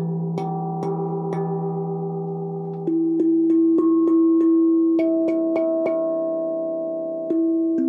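Mirio 15-note steel tongue drum played with two mallets: struck notes, each ringing on and overlapping the next. A few slower notes come first, then from about three seconds in a louder, quicker run of notes.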